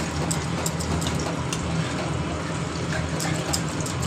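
A spatula stirring thick moong dal into fried spice paste in a kadai, with frequent light taps and scrapes against the pan over a steady low hum.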